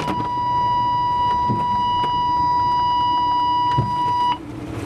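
Steady single-pitch warning tone from a Scania truck's advanced emergency braking system, sounding in the cab over engine and road noise while the truck closes on the car ahead and brakes. It cuts off suddenly about four seconds in, and the vehicle noise drops after it.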